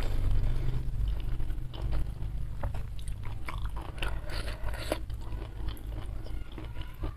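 Close-miked chewing and mouth sounds of a person eating with her fingers, with soft irregular clicks as the fingers pick at salted fish and rice, over a low steady hum.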